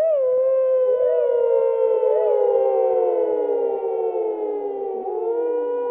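A chorus of canine howls: several overlapping voices, each rising briefly and then sliding slowly down in pitch. New howls come in about five seconds in.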